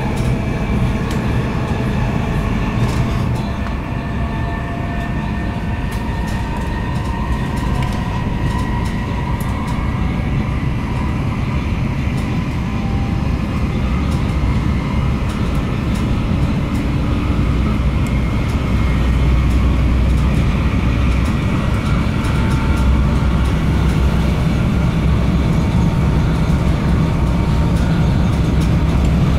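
Steady rumble of an HSL Sm5 Stadler FLIRT electric commuter train running at speed, heard from inside the passenger car, with a faint whine that drifts slowly in pitch. The rumble grows a little louder about two-thirds of the way through.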